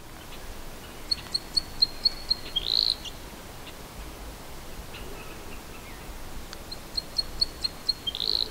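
A songbird singing the same song twice. Each song is a quick run of about seven short, high, clear notes ending in a brief buzzy flourish, over a soft steady background hiss.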